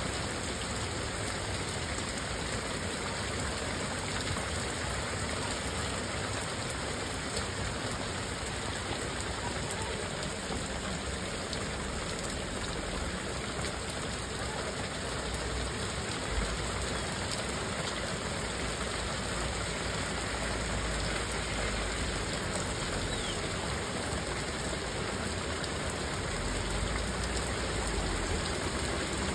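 Torrential rain pouring down on a flooded road and paving, a steady hiss. Near the end a low rumble grows as a car drives through the floodwater.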